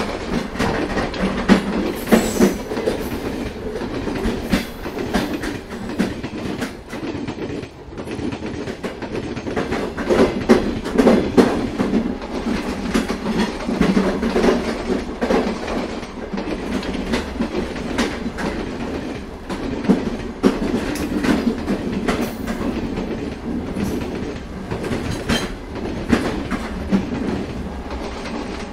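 Indian Railways passenger train running at speed, heard from inside the coach: a steady rumble with repeated clicks of the wheels over the rail joints.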